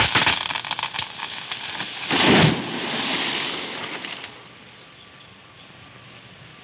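A tree falling: a rapid crackling of splitting wood and snapping branches, then a loud crash about two seconds in, followed by a rush of branches and leaves that dies away about four seconds in.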